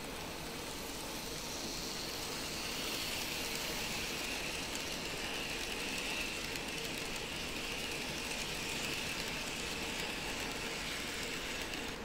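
Model C62 steam locomotive pulling a container freight train along model railway track: a steady motor whine with the rattle of small wheels on the rails, growing louder from about three seconds in as the cars pass close by.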